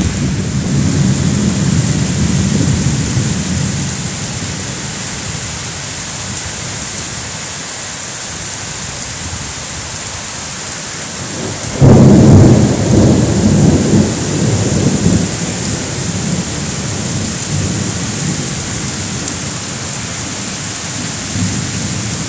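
Heavy rain pouring steadily in a thunderstorm. About halfway through, a sudden loud clap of thunder breaks in and rumbles for a few seconds before fading back under the rain.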